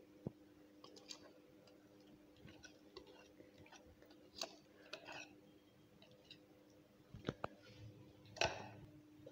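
Faint, scattered clicks and scrapes of a whisk against a bowl as thick cake batter is poured and scraped into a cake tin, over a faint steady hum.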